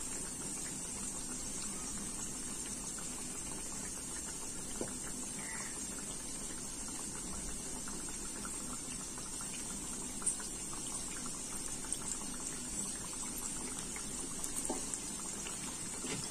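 Gujiyas sizzling as they deep-fry in desi ghee on a low flame: a steady fine crackle and bubbling of the hot ghee, with a few louder clicks partway through.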